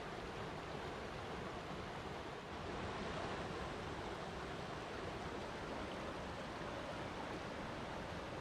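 Steady rush of flowing water, an even noise with no rhythm or distinct splashes; it dips briefly about two and a half seconds in, then comes back slightly louder.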